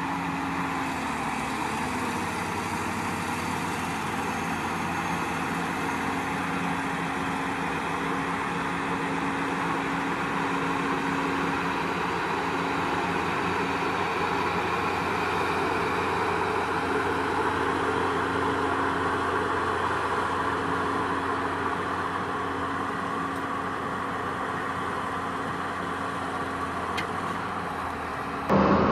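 Diesel engines of a Challenger rubber-tracked tractor and a John Deere combine harvester running steadily as the tractor tows the combine, stuck in mud, across the field.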